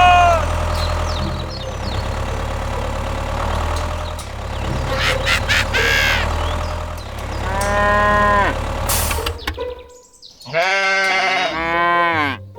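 Several long animal calls that rise and fall in pitch, like a cow's moo, the last ones quicker and closer together, over a steady low hum.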